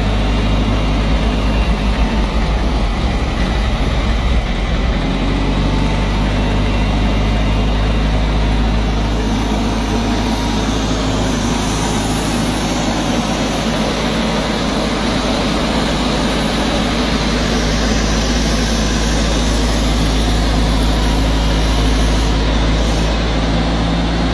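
15-kilowatt generator's engine running on biogas, a loud, steady, even note at constant speed.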